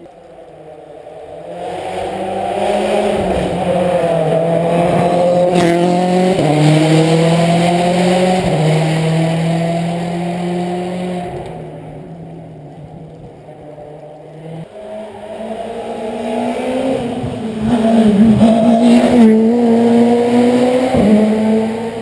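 Rally car engine heard out of sight on a special stage, revving hard under acceleration. The revs climb and drop back sharply several times as it shifts gear. It fades about halfway, then comes back louder near the end.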